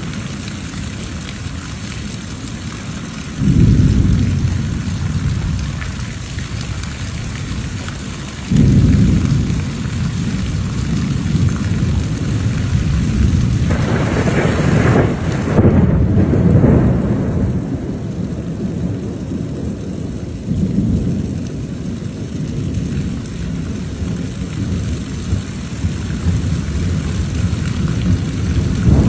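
Steady rain falling, with low rolls of thunder that swell up suddenly about three seconds in, again around eight seconds, and in a longer, louder roll in the middle that slowly dies away.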